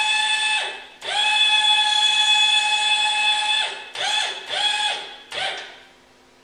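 Electric linear actuators whining as they raise a wheelchair access ramp. A steady high motor whine breaks off briefly, runs again for about two and a half seconds, then comes in three short jogs before stopping, its pitch sagging at each start and stop.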